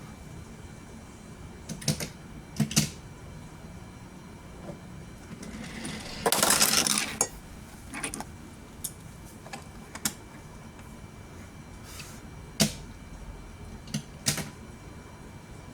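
Scattered sharp clicks and clacks of a die-cast Hot Wheels car on plastic track pieces. A louder rattling run of about a second comes near the middle.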